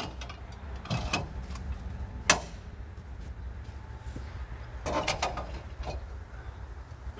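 Several sharp metal clanks and knocks from a Norwood HD36 portable bandsaw mill being worked, with a cluster of them about five seconds in, over a low steady rumble.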